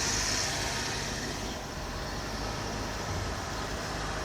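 Pickup truck's engine idling steadily while parked.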